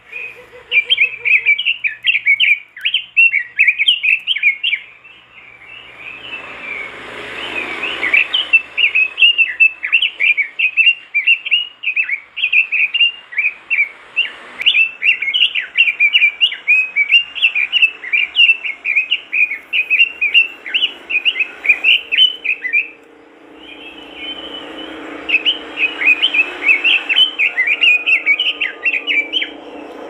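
Red-billed leiothrix (Pekin robin) singing hard: long, fast runs of high chirping, warbling notes, broken by short pauses about five seconds in and again a little after twenty seconds.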